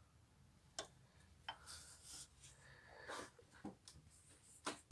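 Hand tools working on the belt tensioner's bolts: a few scattered metallic clicks and taps with brief rustling, the sharpest click near the end.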